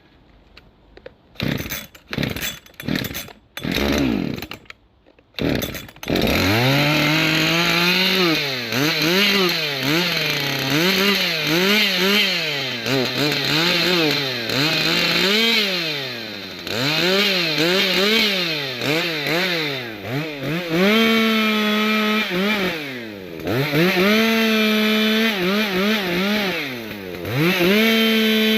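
Ported Makita EA6100 two-stroke chainsaw with a 24-inch bar: a few short sputtering bursts, then it catches about six seconds in and runs on, revving up and down over and over, with several stretches held at full throttle.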